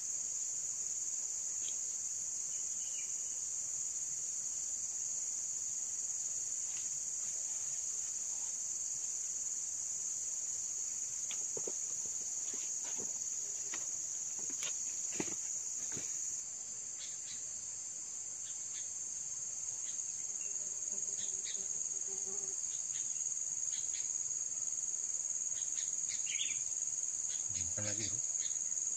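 A steady high-pitched insect chorus from the swamp forest, with a few faint clicks.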